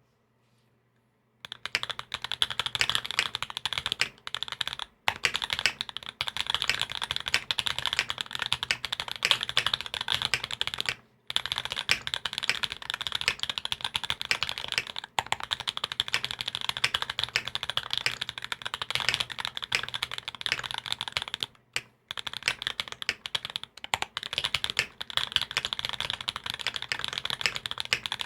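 Fast continuous typing on a custom mechanical keyboard with linear Sp Star Meteor White switches, a carbon fibre plate and GMK Taro keycaps: a dense stream of key clacks that starts about a second and a half in, broken by a few short pauses.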